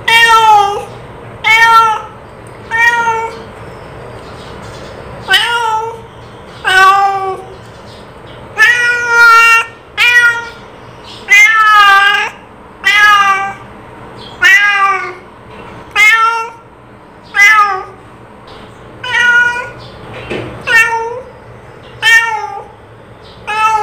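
A cat meowing over and over: about sixteen short meows, roughly one every second and a half, each rising and then falling in pitch. There is a gap of about two seconds near the start.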